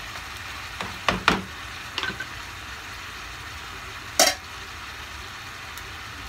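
Chicken and potato pieces sizzling steadily in a frying pan. A wooden spatula knocks against the pan several times in the first two seconds while stirring, and there is a single louder knock about four seconds in.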